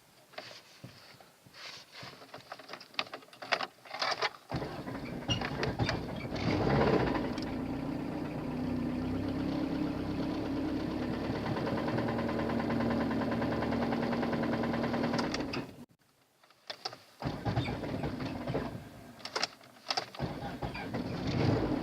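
Car engine restarted after being switched off: a few clicks, then it starts and runs steadily with a fine rapid ticking for about nine seconds before cutting off abruptly, followed by scattered clicks. The oil-pressure warning light stays on, and the owner suspects rod knock or a failed oil pump.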